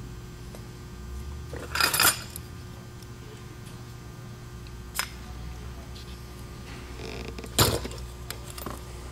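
Small metal automatic-transmission parts being handled on a workbench: a louder clatter about two seconds in and again near the end, with a few light clicks between, over a low steady hum.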